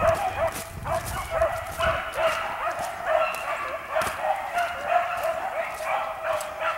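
A pack of rabbit hounds baying in a continuous chorus of overlapping yelps and bawls, the sign that they are on a rabbit's scent and running it.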